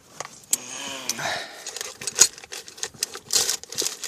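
Rummaging through gear: small hard objects clicking and clattering with bursts of rustling, the loudest clack about two seconds in.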